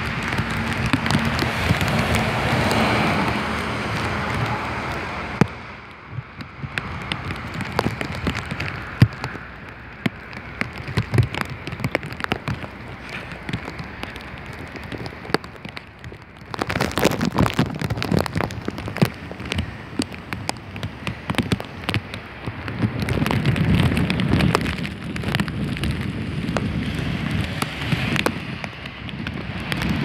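Heavy rain driven by strong wind: a dense patter of raindrops striking close to the microphone. It comes in waves, loud at first, easing after about five seconds, then swelling again from about halfway with a deeper rush of wind.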